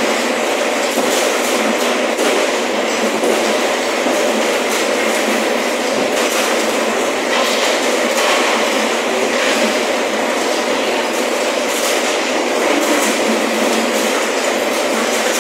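Loud, steady mechanical noise with a continuous rattle and occasional faint clicks, like machinery running.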